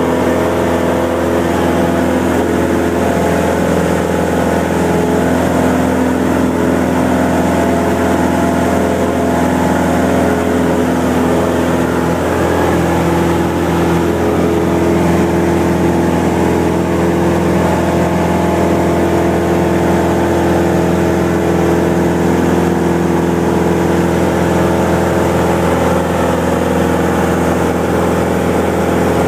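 Cessna 172M's four-cylinder Lycoming engine and two-blade propeller droning steadily during the climb-out after takeoff, heard from inside the cabin.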